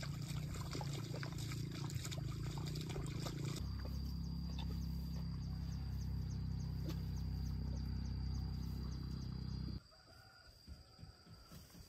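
Outdoor field ambience dominated by wind rumbling on the microphone, with a thin steady high insect drone and faint regular chirps. The wind noise cuts off abruptly near the end, leaving quieter insect sounds.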